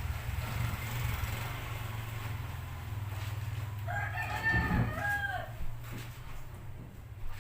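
A rooster crowing once, about four seconds in, a call of about a second and a half over a steady low hum.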